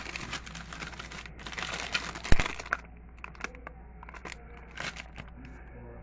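Rustling, crinkling handling noise in two stretches of about a second and a half each. A single sharp click comes about two seconds in, then scattered light clicks and taps.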